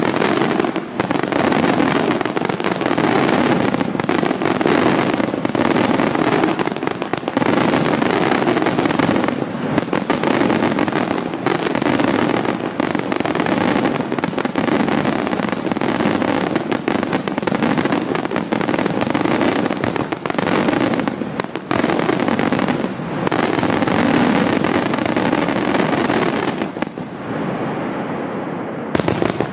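Aerial fireworks shells from a Bruscella Fireworks display bursting in a dense, continuous barrage of booms and crackling reports. The barrage thins out and fades near the end.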